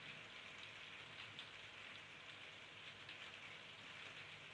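Faint crackling sizzle of a soldering iron melting solder and rosin flux, as a broken LED leg is resoldered to a charger's circuit board.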